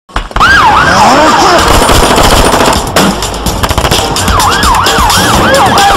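Rapid automatic gunfire, with sirens sweeping up and down over it. The sweeps come quicker in the last couple of seconds.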